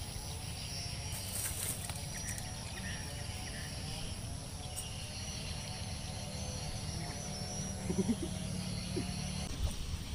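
Outdoor swamp ambience: a steady high insect drone with scattered bird chirps over a low rumble of wind on the microphone. The drone cuts off near the end.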